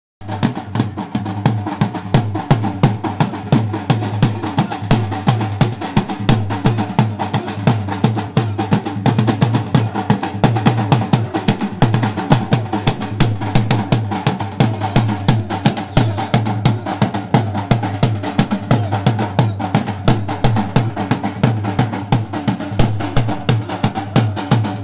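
Folk dance music driven by a dhol drum beating a fast, even rhythm of sharp strokes, over a held droning tone.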